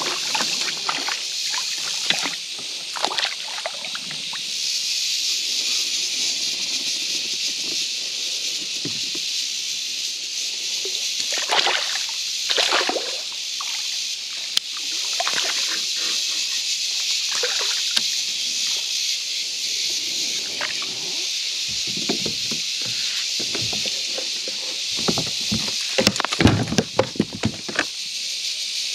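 A hooked palometa (piranha) thrashing and splashing at the water's surface beside a kayak, in short irregular splashes over a steady high hiss. Near the end, a quick run of sharp knocks.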